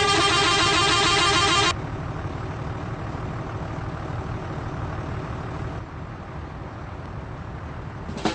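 Bus telolet horn, a multi-trumpet air horn, sounding a loud chord of several tones that cuts off after under two seconds, followed by a steady low rumble of the idling vehicle.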